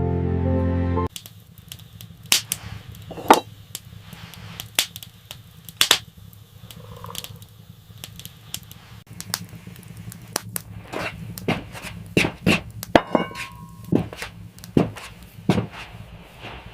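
Irregular sharp cracks and pops, a dozen or so scattered over about fifteen seconds, over a low steady rumble.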